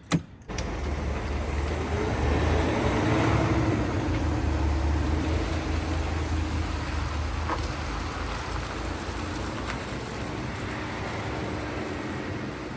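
A click, then a flatbed semi truck's engine and road noise start suddenly and build as the truck pulls away, the engine note rising for a couple of seconds before settling into a steady drone.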